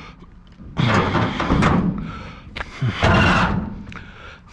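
Heavy scrap item being dragged and banged around, two long, loud scraping clatters, the second about three seconds in.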